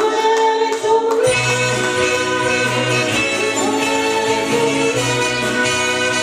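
Cabaret revue music playing loudly, with singing over a band backing and a recurring bass note.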